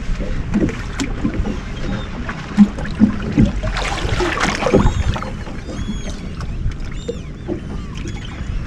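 Seabirds calling over a bait boil, many short curved cries from about halfway on, with a burst of splashing water about four seconds in. A steady low rumble of wind on the microphone and the boat runs underneath.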